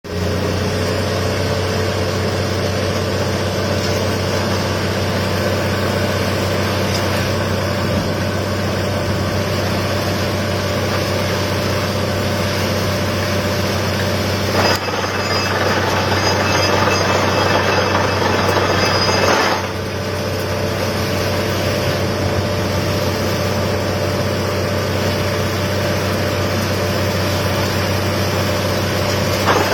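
Borewell drilling rig running steadily with a strong low engine hum. About 15 seconds in, a harsher, louder noise comes in for about five seconds, then drops back.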